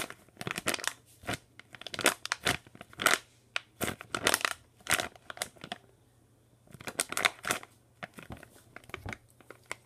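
Clear zip-lock plastic bag crinkling and crackling in irregular bursts as hands squeeze a foam peach squishy inside it. There is a brief pause about six seconds in.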